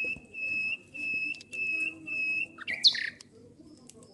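A bird calling: a run of about five evenly spaced whistled notes at one steady pitch, roughly two a second, then a quick burst of squawky, gliding chirps just before three seconds in.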